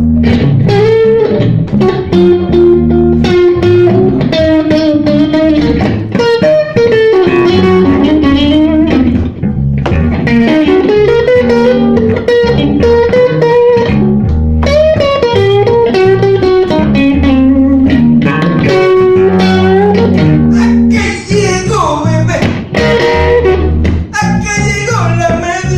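Blues band playing, with a lead guitar line over bass and rhythm; the lead bends and slides in pitch, with quick sliding runs near the end.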